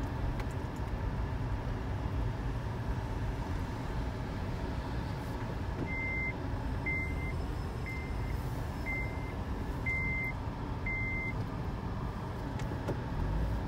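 Steady low rumble of a vehicle being driven slowly, heard from inside the cabin. From about six seconds in, six short high electronic beeps sound about a second apart.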